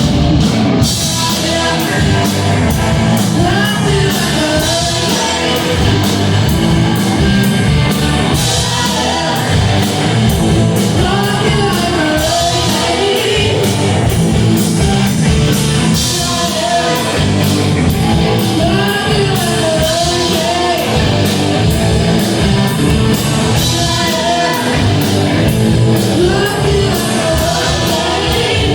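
Live rock band playing a classic heavy-metal song: lead singer over electric guitars, bass guitar and drum kit.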